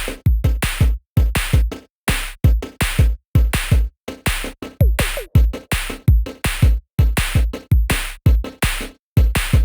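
Electronic background music with a punchy drum-machine beat.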